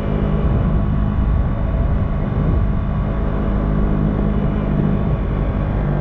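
Motorcycle engine running steadily at an even cruising speed, with wind rumbling over the microphone.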